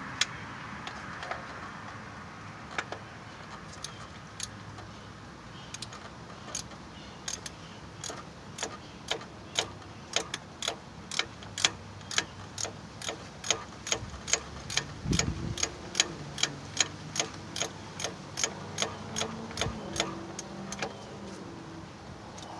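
Ratchet wrench clicking in short, even strokes, about twice a second, as a bolt is worked loose. A faint low hum comes in for a few seconds past the middle.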